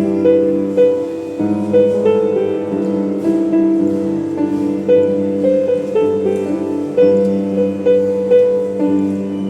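Solo piano playing a gentle melody over sustained bass notes, the notes struck at an even, unhurried pace.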